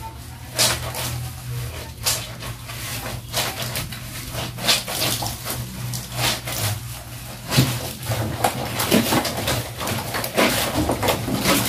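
Hand-washing laundry in a plastic basin: wet clothes dunked, rubbed with a bar of laundry soap and kneaded by hand in soapy water, giving irregular splashing and wet squelching strokes over a steady low hum.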